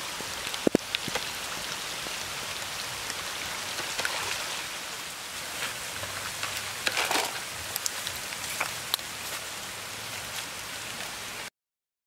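Shallow stream running over stones with a steady, rain-like rush. A few short, sharp clicks and splashes come through, a cluster of them about seven seconds in. The sound cuts off abruptly near the end.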